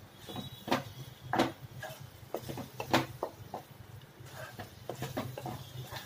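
A spatula stirring thick masala in a nonstick pan: irregular scrapes and knocks against the pan, a few a second, over a low steady hum.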